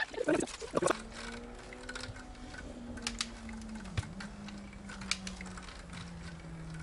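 Plasterer's drywall stilts clicking and knocking on concrete as a man takes his first unsteady steps on them: scattered sharp clacks at irregular intervals. A low hum that slowly falls in pitch runs underneath from about a second in.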